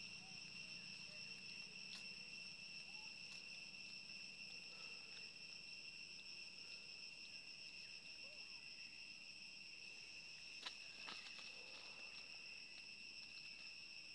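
Faint, steady high-pitched insect trill from the forest, held at one unchanging pitch, with a single sharp click about ten seconds in.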